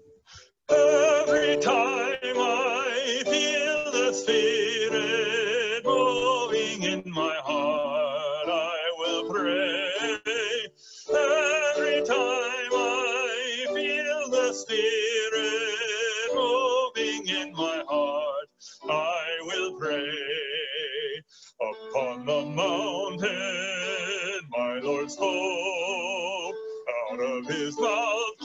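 Music: piano accompanying a solo melody line sung or played with wide vibrato, in phrases broken by a few short pauses.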